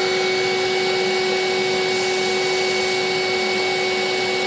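Sump cleaner running on suction, its wand drawing milky coolant and metal chips out of a machine's coolant tank: a steady rushing suction with a constant whine over it.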